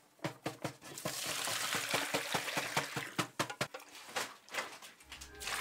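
Wet potato bread dough being stirred with a wooden spoon, a fast run of squelching clicks, while salted, vinegared water is poured in from an enamel pot. Background music comes in near the end.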